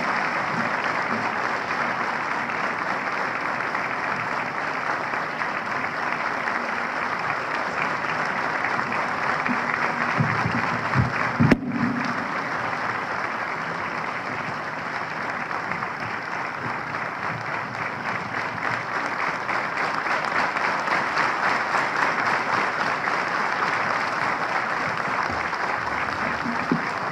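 A large audience applauding steadily, welcoming a speaker to the podium. A few low thumps come about ten to eleven seconds in, and the sound cuts out for an instant at about the halfway point.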